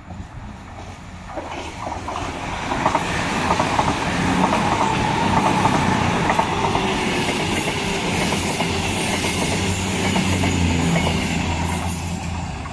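A CrossCountry Voyager diesel multiple unit passing through without stopping: its underfloor diesel engines are running and its wheels clatter over the rails. The sound builds as it approaches, is loudest as the cars go by, and eases off near the end as it moves away.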